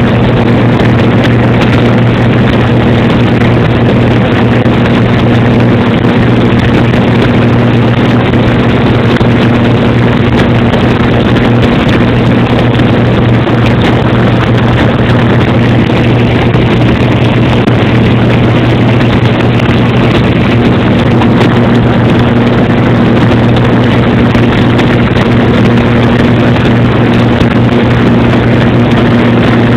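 Airplane in flight heard from inside the cabin: a loud, steady engine drone with a constant low hum and rushing air noise.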